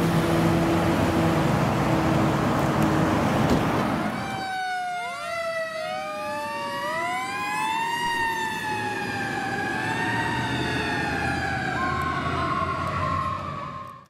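Street traffic noise with a vehicle's engine running. About four seconds in, a fire apparatus siren takes over, winding up in pitch and slowly coasting down again in several overlapping wails.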